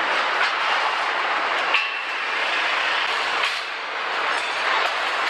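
Steady mechanical din of an engine assembly line, with a sharp metallic clink just under two seconds in and a few fainter clicks.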